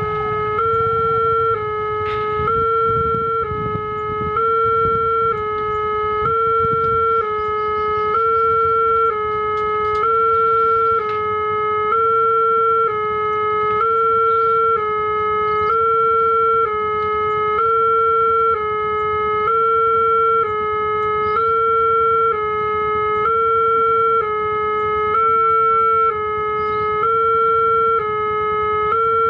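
Railway level-crossing warning alarm sounding a steady electronic two-tone signal. It alternates between two close pitches about every two-thirds of a second, warning that a train is approaching the crossing.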